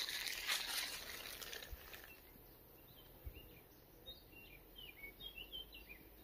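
Rustling of footsteps through forest floor litter for about the first two seconds, then a small bird's quick series of short, high chirps.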